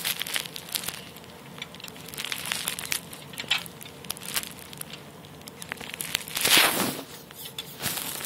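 Rustling and crinkling of a nylon play tunnel's fabric, with scattered light clicks and one louder rustle about six and a half seconds in.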